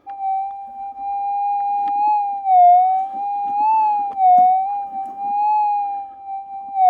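Minelab GPZ 7000 gold detector's continuous threshold tone, wavering gently up and down in pitch and swelling louder a few times as the coil is swept over the hole: ground noise that the operator puts down to wet clay and a couple of hot rocks. Faint scraping and crunching sounds underneath.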